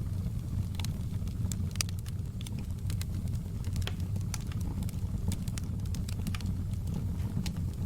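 Wood fire crackling in a fireplace: irregular sharp pops and snaps over a steady low rumble of burning logs.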